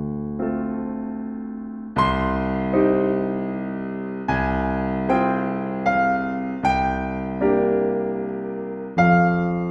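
Slow, gentle piano music: notes and chords struck one after another, each ringing and fading before the next.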